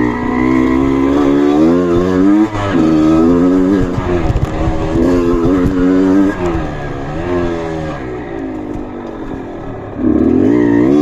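Off-road trail motorcycle engine revving up and down again and again under load, quieter for a stretch near the end before it revs again.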